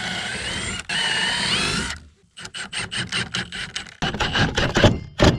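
Power drill running steadily, stopping briefly and spinning up again with a rising whine, then cutting off at about two seconds. A quick series of sharp clicks and knocks follows.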